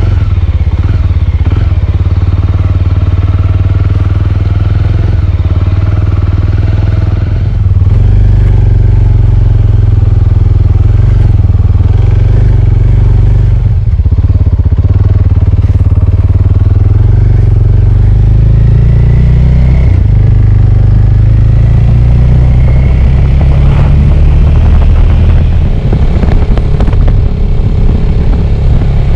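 Small Suzuki 250 motorcycle engine running while ridden over a dirt track and onto the road, louder from about seven seconds in as it pulls harder.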